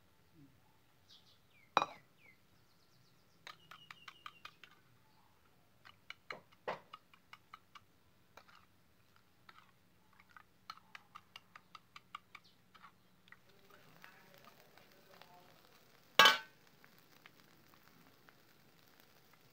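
A metal spoon clinking against a bowl in quick runs of light clicks while liquid is stirred and scooped. A rustling noise, then one loud metal clank about 16 seconds in.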